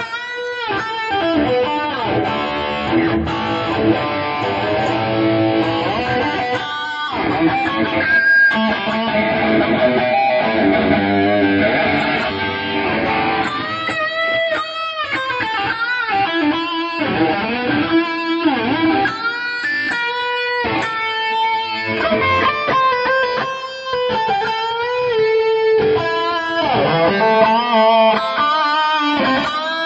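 Electric guitar, a Fender American Standard played through a Boss GT-10 multi-effects unit into a Marshall JCM 900 amplifier. Sustained chords ring for the first dozen seconds or so, then it moves to single-note lead lines with string bends.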